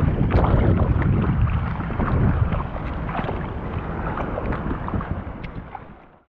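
Strong wind rumbling on the microphone with water splashing, fading away to silence near the end.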